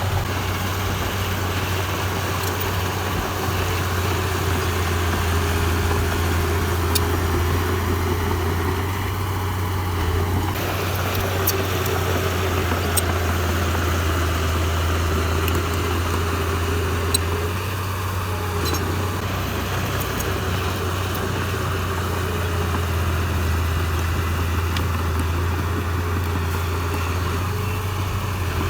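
Diesel engine of heavy earthmoving machinery running steadily at a low, even hum, with a few brief sharp clicks.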